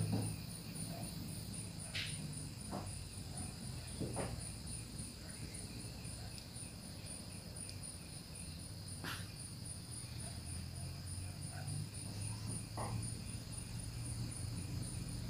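Crickets chirping in a steady, evenly pulsed high trill, with a few faint ticks and a low hum underneath.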